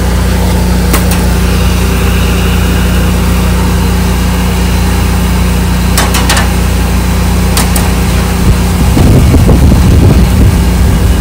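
Small engine running steadily at a constant speed, with a few sharp clicks and a louder stretch of rattling noise near the end.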